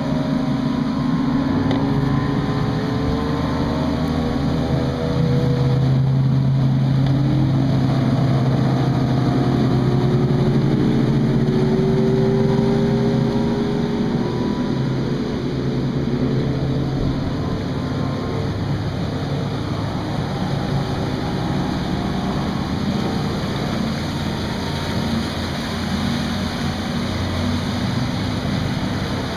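Outboard motors of fishing boats running at speed: a steady engine drone whose pitch slides up and down in the first half as boats pass, over rushing water and wind.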